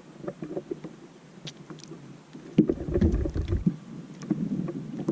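Knocks, clicks and rattles in a small fishing boat, with a sudden louder thump a little past halfway, followed by low rumbling and clatter.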